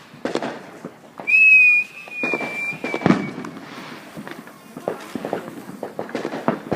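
A whistling firework giving one steady, shrill whistle for about two seconds, starting about a second in, followed by a sharp bang; scattered pops and crackles of other fireworks run throughout.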